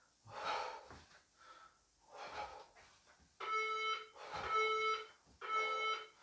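Faint breaths from exercise, then three evenly spaced electronic beeps about a second apart from a workout interval timer counting down the end of an interval.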